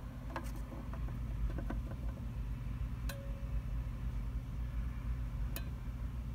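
Steady low background hum with a few light clicks and taps as a plastic toy figure is handled on a carpeted set.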